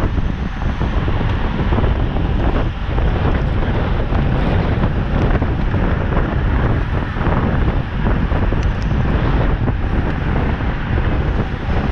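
Loud, steady wind rushing over the microphone of a camera carried on a road bicycle at race speed.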